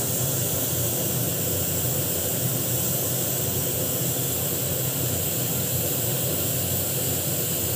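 Steam hissing steadily out of a pressure cooker's vent, its weight held up with a spoon handle to let the pressure out.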